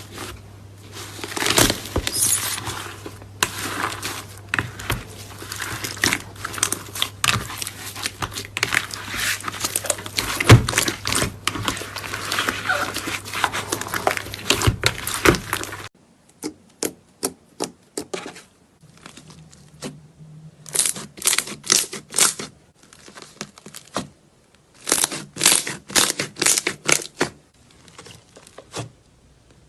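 Slime being squeezed and worked by hand, giving dense crackling and popping clicks; about halfway the sound changes abruptly to quieter, separate bursts of crackles.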